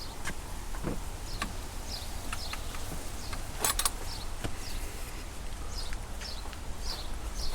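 Wind rumbling on the microphone, with a small bird calling over and over in short falling chirps. A few sharp clicks and knocks, the loudest a quick cluster a little after halfway.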